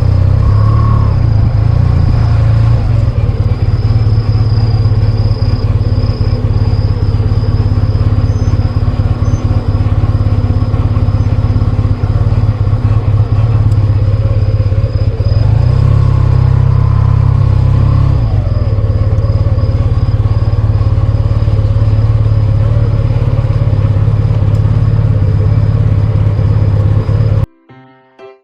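Yamaha TMAX530 scooter's parallel-twin engine and drivetrain running with a steady drone that briefly rises and falls in pitch about halfway through. It carries the abnormal noise that the owner puts down to a grease-starved spline shaft. It cuts off suddenly near the end.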